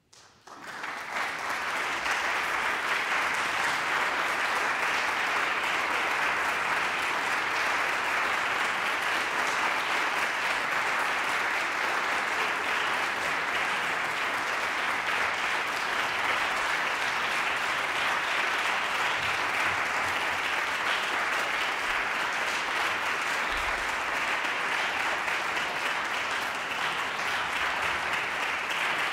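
Audience applauding, starting suddenly out of silence and reaching full strength within about a second, then holding steady.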